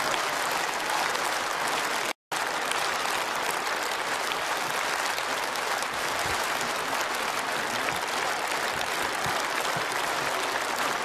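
Large theatre audience applauding steadily, a dense even clatter of many hands clapping. The sound drops out completely for a split second about two seconds in.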